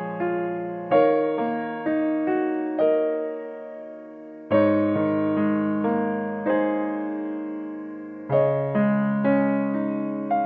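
Background piano music: a slow, gentle piano piece, chords struck every second or so and left to ring and fade, with a stronger fresh chord about a second in, midway and near the end.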